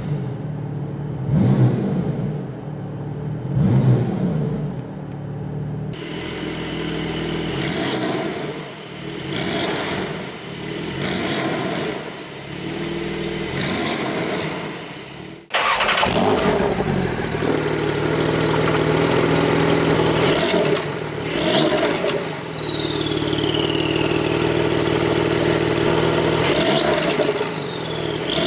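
Porsche 992 911 Turbo S twin-turbo flat-six breathing through an Akrapovič exhaust, revved in repeated throttle blips that rise and fall, then running steadily with more revs. The sound changes abruptly twice, as if between separate clips.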